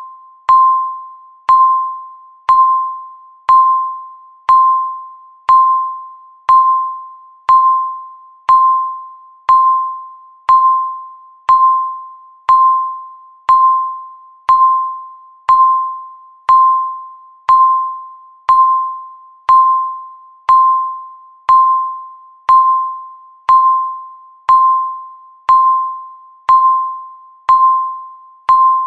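Countdown timer beep, a single ringing tone struck once a second, each one fading out before the next.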